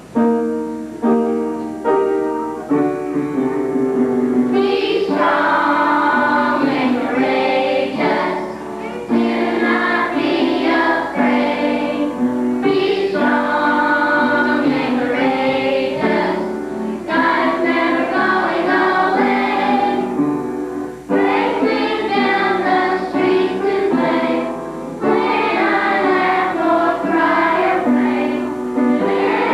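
A group of children singing a song together over musical accompaniment, with the accompaniment's short separate notes opening the song before the voices fill in.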